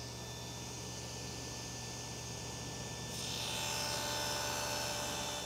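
Table saw running steadily with a motor hum. About three seconds in, the blade cuts a slot into a small hard maple clamp head held in a jig, adding a louder hissing cut that lasts about two seconds.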